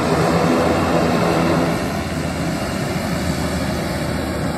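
Twin-engine turboprop airplane taxiing, its engines running in a steady drone with a low hum; the sound eases slightly about two seconds in.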